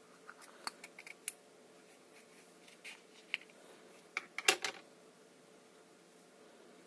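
Small objects being handled at close range: scattered light clicks and taps, with a brief cluster of louder clicks about four and a half seconds in.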